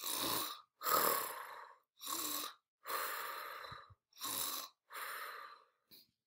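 A woman mimicking snoring: about six breathy snores in a row, roughly one a second, with short quiet gaps between them.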